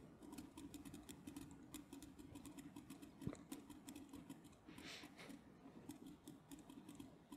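Near silence with faint, irregular clicks of a computer mouse, one a little louder about three seconds in, over a faint low hum.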